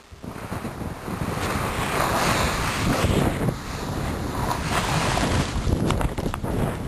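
Snowboard sliding and turning through fresh powder, a steady rushing hiss that swells about a second in, mixed with wind noise on the microphone as the rider picks up speed. A few short knocks come through near the end.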